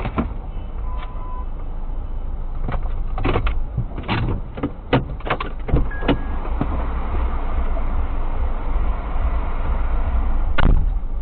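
A stopped car's engine idling, heard from inside the cabin. A run of clicks and knocks comes a few seconds in, with two short beeps. A loud sharp click near the end sounds like the car's door being unlatched.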